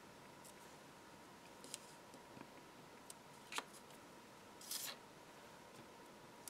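Faint handling sounds of metal craft tweezers and card: a few small ticks, a sharper click about three and a half seconds in, and a brief rustle just before five seconds.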